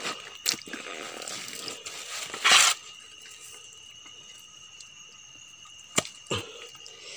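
Shallow stream water splashing as a prawn is grabbed at by hand, with one short loud splash about two and a half seconds in and a few small knocks. A faint steady high tone runs behind.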